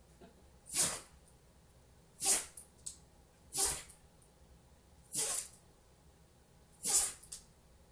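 A dog sneezing over and over: five short sneezes about one and a half seconds apart, from its allergies.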